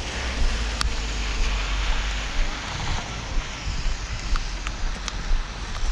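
Steady hiss of rain with wind rumbling on the body-worn microphone, and a few faint sharp clicks.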